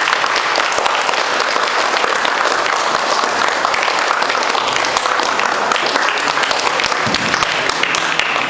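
A group of people applauding, dense hand clapping that keeps up at an even level and fades just at the end.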